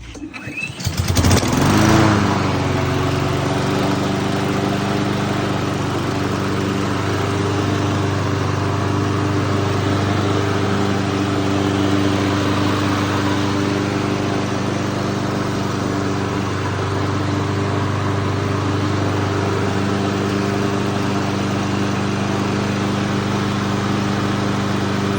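Honda-engined walk-behind lawn mower pull-started; it catches about a second in and runs steadily at a constant speed, then cuts off near the end.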